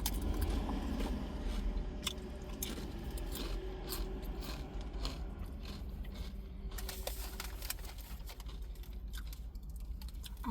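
Close-up chewing of a sandwich, with many small crunches and wet mouth clicks, over a low steady hum.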